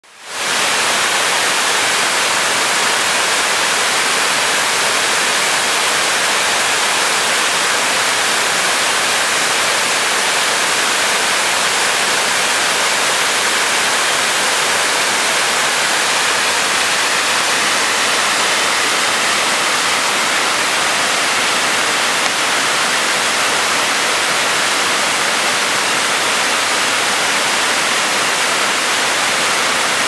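Waterfall with a heavy flow pouring over a rock ledge and cascading down into a pool: a steady, unbroken rush of water, fading in at the very start.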